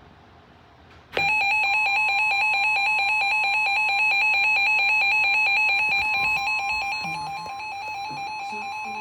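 NOAA Weather Radio warning alarm tone signalling an emergency alert: a loud, steady electronic alarm tone that starts abruptly about a second in, two pitches sounding together with a fast buzzy pulsing. It drops a little in loudness after about seven seconds.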